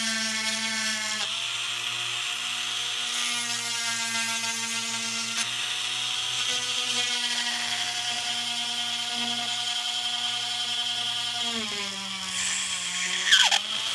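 Dremel rotary tool on a flex shaft running at a steady high whine as a small bit grinds into hard plastic. Its pitch sags when the bit bites harder, briefly about a second in and for a couple of seconds near the end, with a short louder scrape as it recovers.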